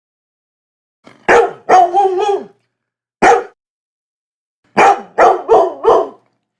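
A dog barking loudly in groups: two barks about a second in, the second drawn out, a single bark a second later, then four quick barks in a row near the end, with dead silence between the groups.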